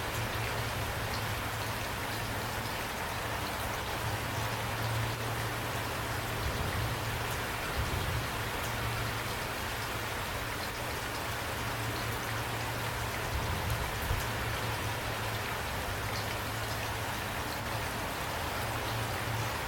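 Steady rain falling, with scattered individual drop ticks over an even hiss and a constant low rumble underneath.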